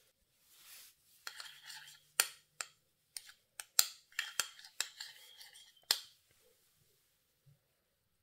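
Metal teaspoon stirring mashed raspberry jam in a plastic tub: wet scraping broken by a string of sharp clicks as the spoon knocks the sides, stopping about six seconds in.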